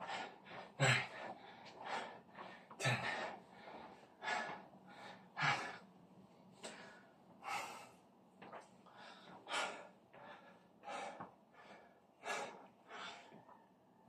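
A man breathing hard, catching his breath after heavy bag work: loud gasping breaths about every second or so, easing off a little toward the end.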